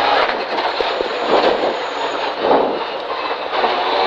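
Rally car engine heard from inside the cockpit, off the throttle and downshifted from fourth to second gear under braking, with dense mechanical and road noise; near the end the engine pulls again with rising pitch.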